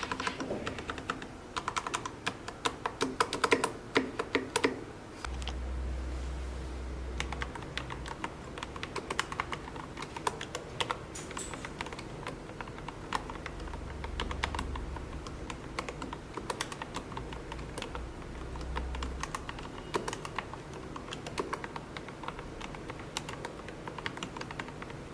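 Mechanical keyboard fitted with Gateron Yellow Pro linear switches being typed on. Fast, loud bursts of keystrokes in the first few seconds give way to steadier typing.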